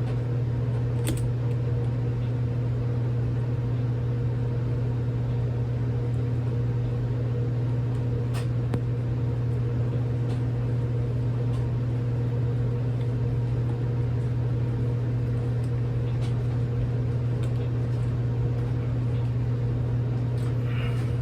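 A steady low machine hum that does not change, with a few faint scattered clicks of a screwdriver working the revolver's grip screws.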